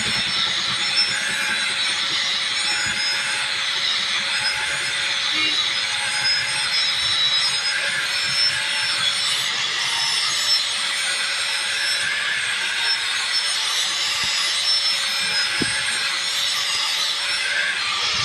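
Handheld angle grinder with an abrasive disc grinding a steel dagger blade: a steady motor whine under a harsh grinding hiss that wavers as the disc is worked along the blade.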